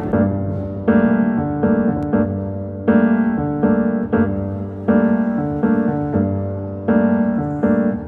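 Slow background piano music: chords struck about once a second and left to ring and fade.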